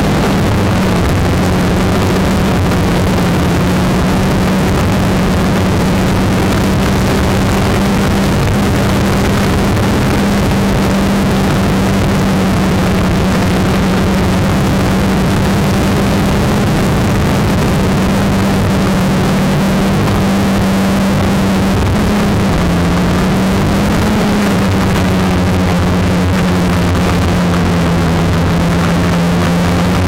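Small multirotor drone's electric motors and propellers humming at a steady pitch over a rush of noise. About three quarters of the way through, the pitch wobbles and then settles slightly lower.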